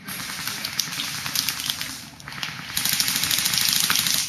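Airsoft guns firing rapid full-auto bursts, a dense stream of sharp clicks that starts suddenly, eases about two seconds in, then comes back as a steadier, louder burst that cuts off at the end.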